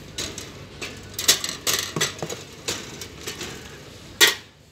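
A run of light clicks and knocks, with one louder knock about four seconds in.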